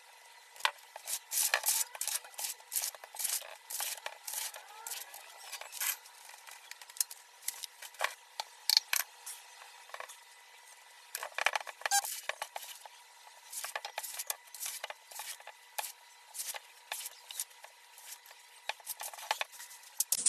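Metal mesh sieve tapped and shaken over a stainless steel mixing bowl as flour is sifted into cake batter: rapid, irregular metallic clicks and rattles, coming in clusters.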